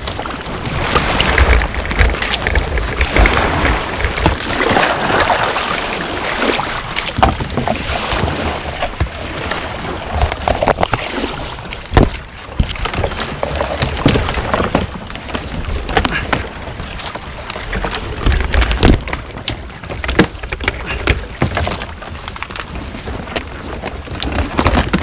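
Seabird Discovery kayak being paddled on a river: water splashing from the paddle strokes, with sharp knocks now and then and wind rumbling on the microphone.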